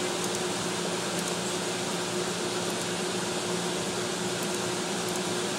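Steady fan-like hiss with a faint low hum, with a few faint ticks.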